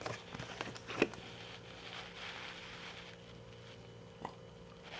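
Quiet room tone with a steady low hum, broken by a few faint clicks and light rustles; the sharpest click comes about a second in and a smaller one near the end.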